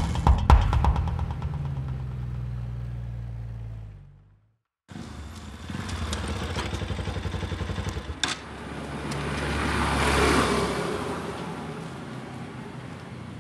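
Motorcycle engine running as the bike rides along. The sound cuts out briefly about four seconds in, then a motorcycle is heard again, growing louder to a peak around ten seconds in as it passes and fading away.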